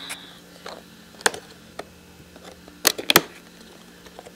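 Sharp clicks and knocks of a product's packaging being handled and opened: one about a second in, then a quick cluster of three a little under two seconds later, with fainter taps between.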